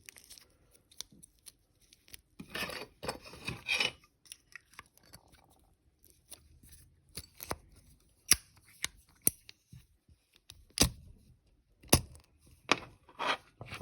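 Handling of a Zippo lighter: a small plastic baggie crinkles as it is wrapped back around the lighter's insert, followed by a run of sharp clicks and taps in the second half.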